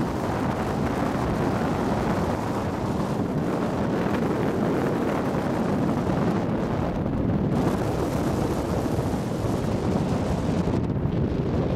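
A moving car's steady rush of wind and road noise, heard from inside the car, with wind buffeting the microphone.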